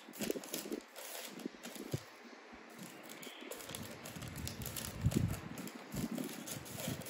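Scattered light knocks and soft rustling of a paper wrapper being handled at a table, with a few louder soft thumps about five seconds in.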